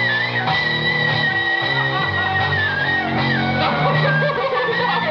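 Punk rock band playing: electric guitar and bass with a high held note that steps down about three seconds in.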